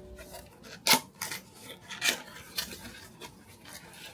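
Small paperboard box handled and opened by hand: a sharp tap about a second in, then several softer clicks and scrapes of cardboard as the tuck flap is pulled free and the lid lifted.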